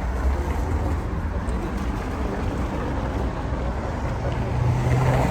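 City street traffic noise: a steady low rumble of vehicle engines and tyres, with one engine's hum growing louder near the end as a vehicle comes close.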